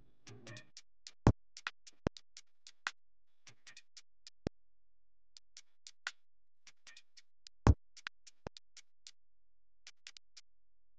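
A scatter of sharp knocks and clicks in a gym over near silence: a basketball bouncing on the hardwood floor a handful of times at uneven gaps, the loudest bounce about two-thirds of the way in, with fainter ticks in between.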